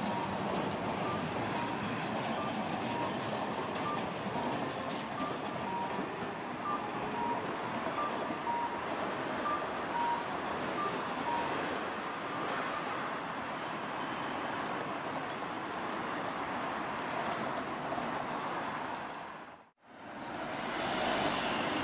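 Street traffic at a streetcar intersection: a low-floor streetcar and cars passing, with a repeating two-note electronic beep through the first half. Near the end the sound cuts out briefly and resumes with a bus passing close by.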